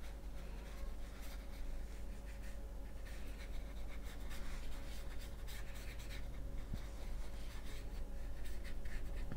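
Soft, irregular brushing of a watercolor paintbrush on watercolor paper as wet paint is spread over an area, with a faint steady hum underneath.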